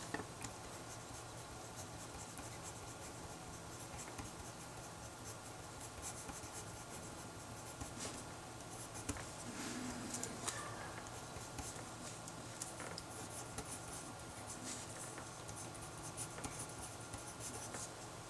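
Handwriting: a run of short scratchy pen strokes with brief pauses, as a maths problem is copied out.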